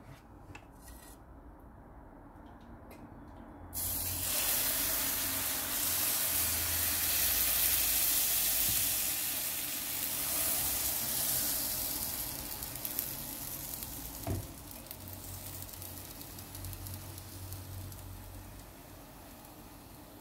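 Crêpe batter hitting a hot, lightly oiled non-stick frying pan: a sudden loud sizzle about four seconds in that slowly dies down as the thin batter sets. A single brief tap about fourteen seconds in.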